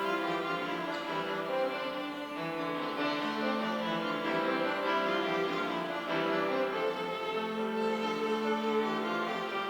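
Bowed strings, violins and cellos, playing slow sustained chords, each held for one to three seconds.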